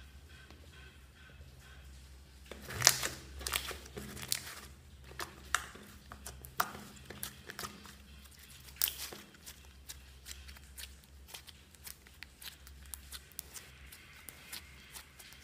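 Thick pink slime being squeezed and pressed by hand, giving a string of sharp pops and crackles as trapped air bursts through it. The popping starts a couple of seconds in, with the loudest pops about three seconds in and again near nine seconds.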